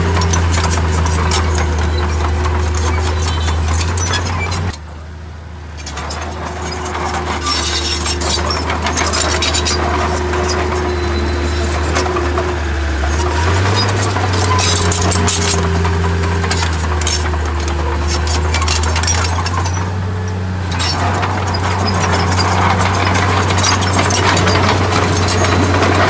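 Bulldozer's diesel engine running, with clinking and rattling and a whine that wavers in pitch. The sound drops abruptly about five seconds in and builds back up over the next few seconds.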